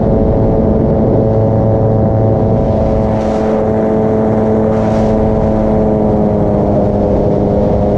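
Paramotor engine and propeller running steadily at power, the pitch easing down slightly about six seconds in. Two short hisses come through near three and five seconds in.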